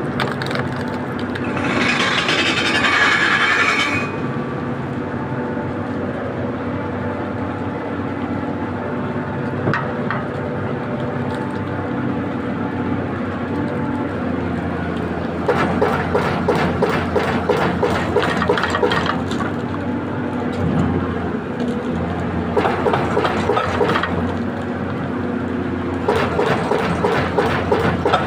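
Heavy machine's diesel engine running steadily, with a hiss early on and three spells of rapid, even knocking later, about fifteen, twenty-two and twenty-six seconds in.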